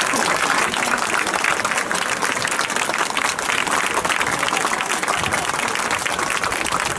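A stadium crowd applauding, with many hands clapping steadily and spectators clapping close by.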